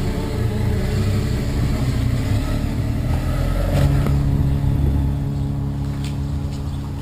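Motorcycle engine running as the bike rolls slowly at low speed, a rumbling drone with a short knock about four seconds in, after which the drone holds steady.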